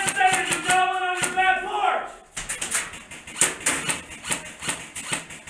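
Airsoft gunfire: a rapid, uneven run of sharp clicks and snaps, several a second, with a voice calling out over them during the first two seconds.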